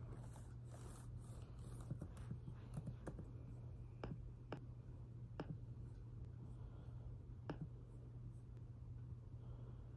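Faint, scattered clicks and taps of hands working a laptop, a handful at irregular intervals, over a steady low hum.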